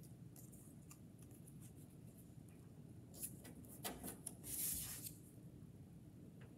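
Cut-paper bows being handled and pressed down onto a paper kite string on a tabletop: faint scattered clicks, then a short run of crinkles and a paper rustle about three to five seconds in.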